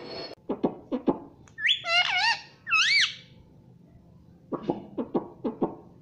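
Indian ringneck parakeet calling: quick falling chirps, then two warbling whistles about two and three seconds in, then a run of five short chirps near the end.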